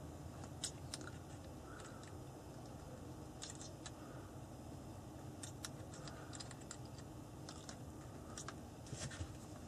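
Faint, irregular small metallic clicks and ticks from a pin turning the adjuster screw of an air rifle's adjustable rubber butt pad, over a low steady hum.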